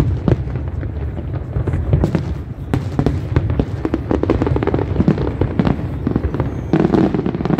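Aerial fireworks bursting in quick succession: a steady run of overlapping bangs and crackles over a continuous low rumble, growing denser near the end.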